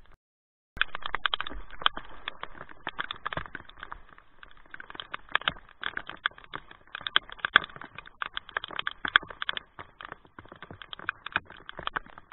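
Rain on a plastic kayak and the camera's waterproof housing: a dense, irregular patter of drop hits that starts just under a second in.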